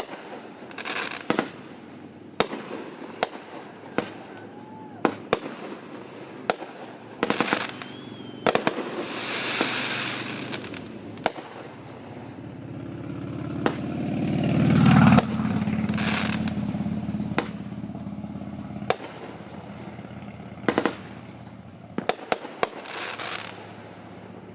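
Fireworks going off over a lake: a string of sharp bangs at irregular intervals, some crackling, and a louder swell that builds for a few seconds and stops abruptly about halfway through. Crickets chirp steadily underneath.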